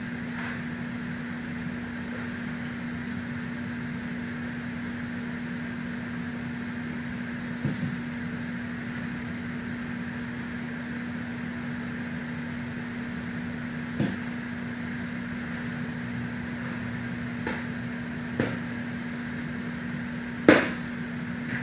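Window air conditioner running with a steady hum and a constant low tone. A few short knocks sound over it, the loudest near the end.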